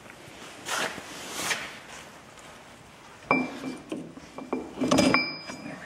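Metal parts scraping and clinking as a pinion gear and its retainer are slid back into a Ford 9-inch third member housing and the pinion is turned to mesh with the ring gear. Two short scrapes come first, then from about three seconds in a run of sharp, ringing metal clinks.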